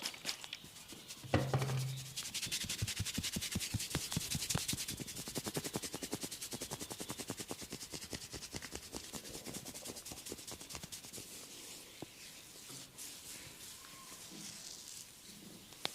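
Massage: hands rubbing rapidly and rhythmically over the body, about seven strokes a second, fading over the last few seconds. A brief low hum sounds about a second in.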